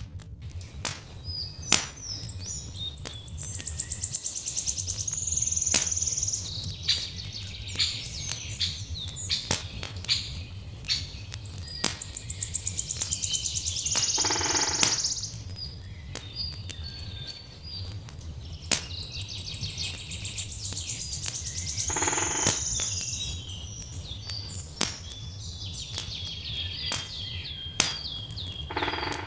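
Songbirds sing in repeated chirping phrases over the sharp pops of a crackling wood fire, with a steady low rumble underneath.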